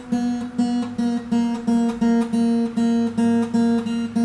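Acoustic guitar's second (B) string plucked over and over, about three times a second, as its peg is turned down a half step from B toward A sharp for E-flat tuning.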